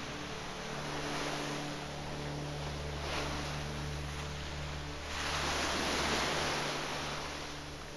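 Ocean surf rushing, with a swell about three seconds in and a bigger surge about five seconds in, over soft music holding low sustained notes.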